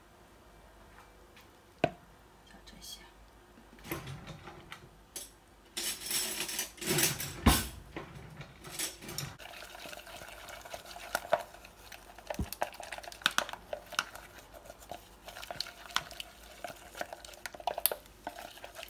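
Water poured into a bowl of flour about six seconds in, then a metal utensil stirring the flour and water into batter, clicking and scraping against the bowl many times.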